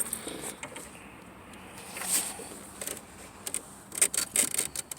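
Scattered light clicks and rustles of hands handling wires and plastic parts under a van's dash, busier in the last second or so.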